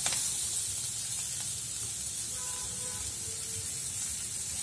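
Sliced onions, cashews and whole spices sizzling steadily in a little oil in a nonstick frying pan, with a wooden spatula knocking the pan once right at the start.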